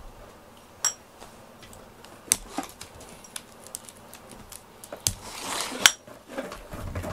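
Glass jars with metal screw lids set down on a wooden floor: a few sharp clinks and knocks, the first with a brief glassy ring, and a short rustle near the end.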